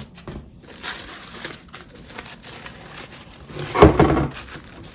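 Packaging paper rustling and crinkling as it is handled, with a louder rustle about four seconds in.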